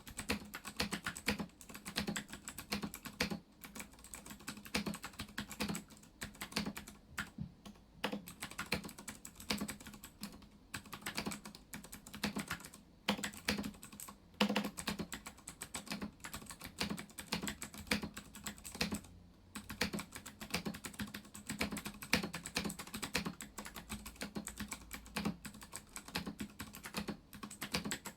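Continuous fast typing on a Ducky One 2 Mini mechanical keyboard with Cherry MX Blue switches: crisp clicky keystrokes over a low thud of keys bottoming out, with brief pauses between bursts.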